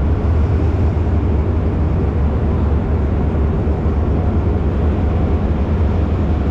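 Diesel locomotive standing at the platform with its engine idling: a steady, low rumble.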